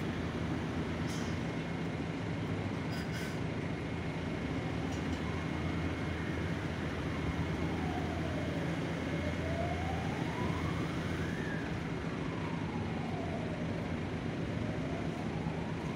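Steady low engine rumble with a faint siren over it that wails slowly up and down, rising and falling every few seconds from about a third of the way in.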